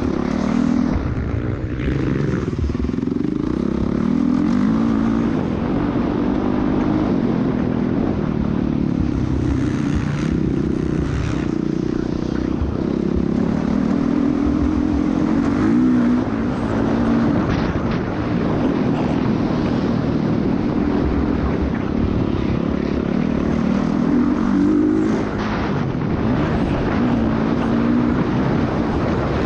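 A motocross dirt bike engine heard from on the bike, revving hard with its pitch climbing and dropping again and again as the rider accelerates and shifts gears. A steady rush of wind noise runs underneath.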